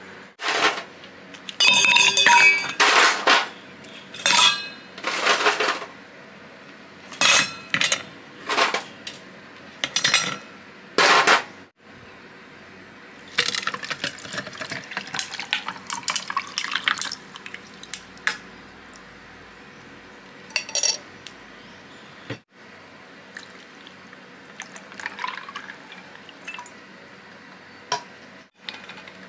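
Kitchenware and glass clinking in a run of sharp knocks, then tea poured through a mesh strainer onto ice cubes in a stainless steel tumbler, the pour rising in pitch as the cup fills.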